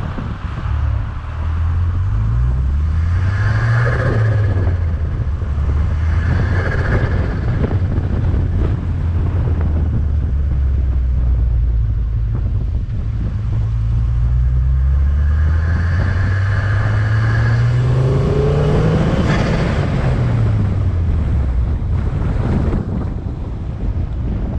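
Volvo S40 T5's turbocharged five-cylinder engine pulling under acceleration and easing off several times, its pitch rising and falling, with intake and turbo hiss during the climbs.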